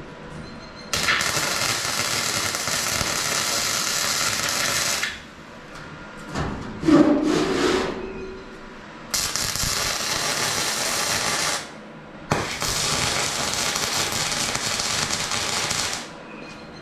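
Welder striking an arc three times and running for a few seconds each time, a steady crackling hiss with sharp starts and stops. A louder clatter about 7 seconds in, between the first and second runs.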